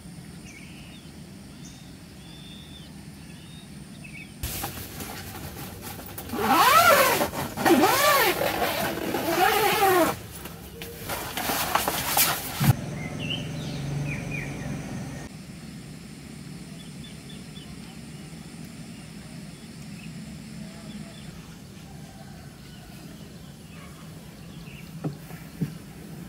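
A motor vehicle engine revving up and down several times over a few seconds, then settling. Faint bird chirps sound at the quieter start and end.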